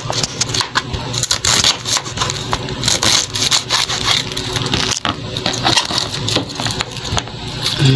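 Knife slicing through a head of raw cabbage on a plastic cutting board: a dense run of crisp crunching cuts.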